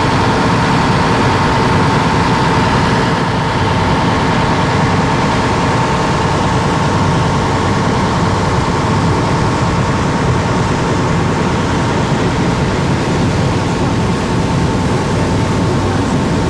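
Motor launch underway, its engine running with a steady drone and a steady high whine above it, mixed with rushing wind and water noise.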